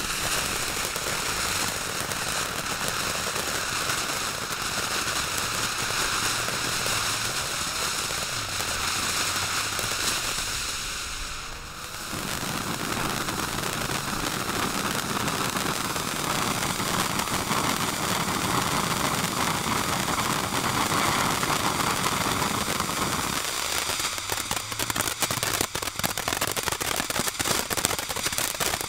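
Firework fountains hissing steadily as they spray sparks. The hiss dips briefly a little before halfway and picks up again. In the last few seconds dense crackling joins it.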